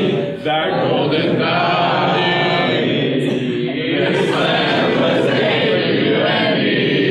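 A large group of young people's voices chanting together.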